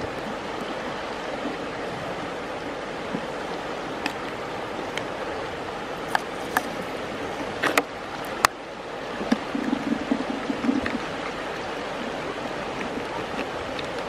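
Steady rush of flowing river water, with a few sharp clicks and knocks from a metal spoon and plastic bowl being handled, and a brief low hum about ten seconds in.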